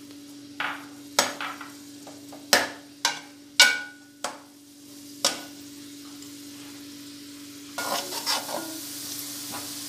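Sliced onions frying in oil in an aluminium karahi, stirred with a metal spatula that scrapes and knocks against the pan several times in the first five seconds, over a steady low hum. Near the end the frying sizzle gets louder, with more scraping, as the onions brown.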